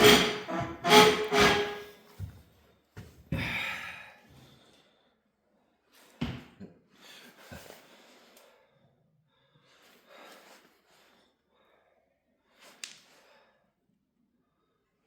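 Loud clunks and thuds from handling a small-block V8 during teardown, several in the first two seconds and another a little later, then a few faint scattered knocks and clicks.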